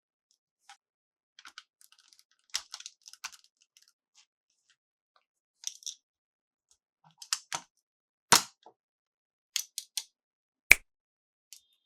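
Plastic toy pieces and packaging being handled: scattered clicks and crinkly ticks, with two sharp knocks in the second half.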